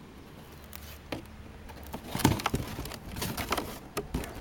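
Handling noise: irregular rustles, clicks and knocks as a cardboard box and a metal muffin tray of poured orgonite are moved about, busiest and loudest in the middle.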